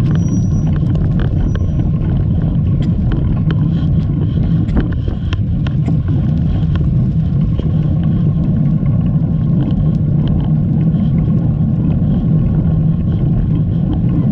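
Wind buffeting the camera microphone while cycling: a loud, steady low rumble, with faint scattered clicks.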